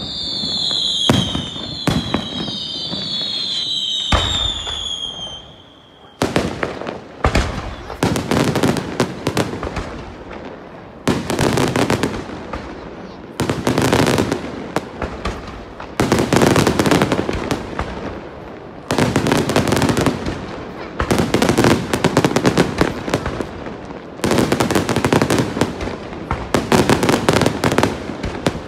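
Daytime aerial fireworks bursting overhead. For the first few seconds falling whistles mix with sharp bangs. After that come repeated volleys of rapid crackling reports, each a second or two long, with short gaps between.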